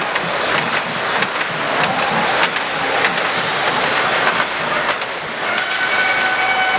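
Model trains running on layout track amid the steady din of a busy exhibition hall, with many small clicks; a steady tone at two pitches comes in about five and a half seconds in.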